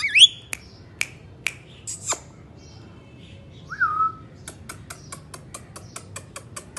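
Indian ringneck parrot making non-speech sounds: a short rising chirp, a few single sharp clicks, a brief squawk and a short whistle. In the second half comes a fast, even run of clicks, about six a second.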